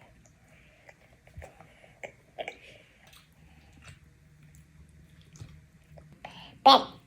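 Chewing food close to the microphone, with small wet mouth clicks and smacks scattered through. A loud short vocal exclamation comes near the end.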